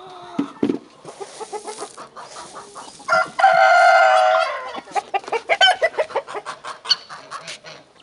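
Chickens clucking all around, with a rooster crowing once, loud and about a second and a half long, about three seconds in.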